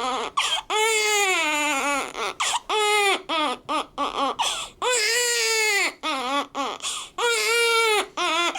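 Newborn baby, six days old, crying hard: long high wails of about a second each, broken by short gasping cries and catches of breath.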